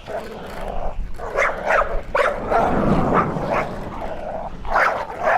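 Dog barking: a series of short barks and yips, most of them coming in quick pairs.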